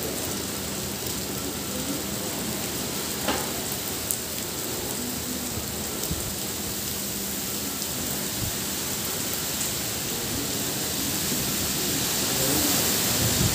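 Steady heavy rain falling on trees and foliage, an even hiss that grows a little louder near the end. Two brief sharp ticks stand out about three and four seconds in.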